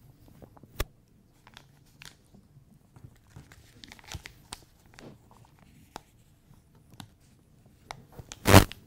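Handling noise from a handheld microphone as it changes hands and is worked against its stand: scattered clicks and rubbing, with a sharp click about a second in and a loud thump near the end.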